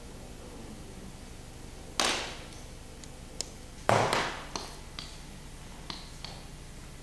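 Handling noise of a large sheet being lifted in a print studio: two loud sudden rustling crackles about two seconds apart, each trailing off over half a second, then a few light clicks, over a steady low hum.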